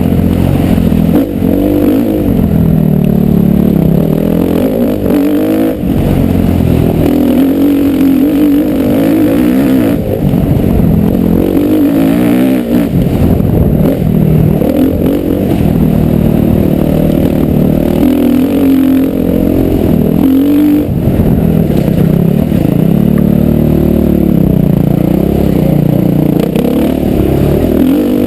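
Motocross motorcycle engine running hard and close, its pitch climbing and dropping again and again every few seconds as the throttle opens and closes.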